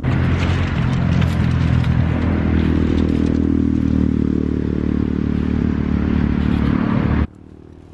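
A motor vehicle's engine running close by, a steady drone that rises slightly in pitch midway and falls back, then stops abruptly near the end.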